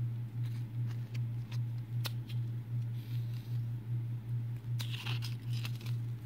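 A small paper leaflet being handled and folded, with faint clicks and a short crinkle about five seconds in. Under it runs a loud low hum that pulses about three times a second.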